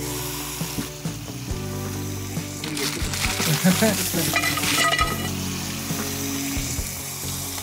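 Hot stones sizzling as they are packed inside a boned, marinated lamb leg, with a few short clicks of stone and tongs.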